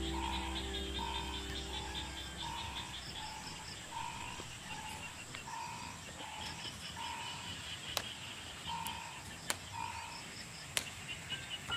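Frogs calling: a steady run of short croaks, about three every two seconds, over higher chirping calls, with a few sharp clicks in the last few seconds.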